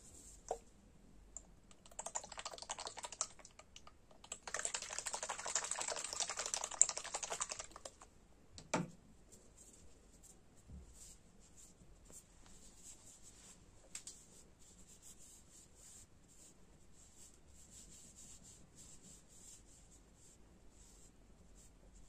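Close-up handling of skincare things: two stretches of dense crackly rustling, the longer from about four to eight seconds in, a single knock just before nine seconds, then faint soft rubbing and light ticks as a cotton pad is wiped over the face.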